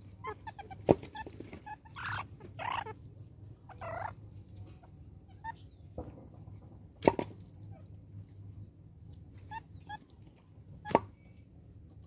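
Banded mongooses feeding together: short chirping and chattering calls mixed with chewing and scuffling at the food, and three sharp clicks, the loudest about a second in, another just past the middle and one near the end.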